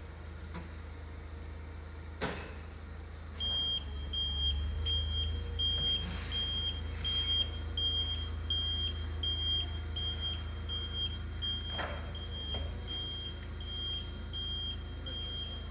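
Forklift running and moving off, its low engine hum growing louder a few seconds in, with its warning beeper sounding about one and a half times a second from then on. A sharp click about two seconds in and another near twelve seconds.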